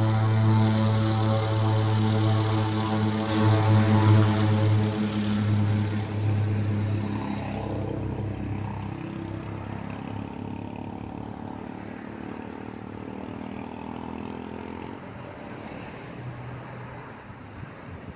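Air Tractor AT-502B's Pratt & Whitney PT6A turboprop engine and propeller at take-off power: a loud steady drone that peaks about four seconds in, then fades away gradually as the aircraft accelerates down the runway.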